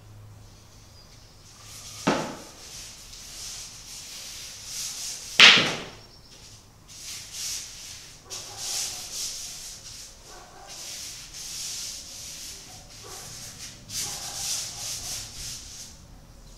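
Paintbrush scrubbing paint across a large canvas in repeated strokes, a hissy scratching. Two sharp knocks, about two and five and a half seconds in, the second the loudest sound.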